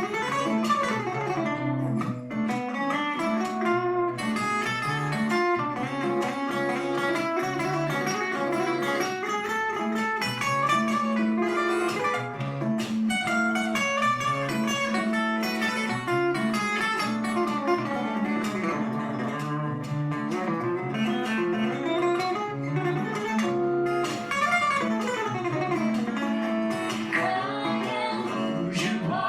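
Live guitar music: an instrumental passage of plucked and strummed guitar, with no singing.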